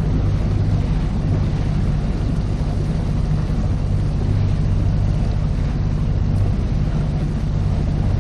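Strong wind buffeting the microphone over a choppy lake, a steady loud rumble with a constant low hum underneath.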